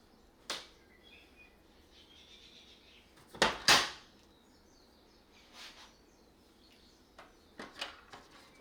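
Hard plastic clicks and knocks as vacuum cleaner attachments are handled, with one sharp click early, a loud double clack about three and a half seconds in, and a few lighter clicks near the end.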